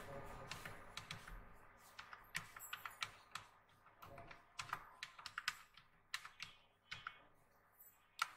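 Computer keyboard typing: faint, irregularly spaced keystrokes, with one sharper, louder key press near the end.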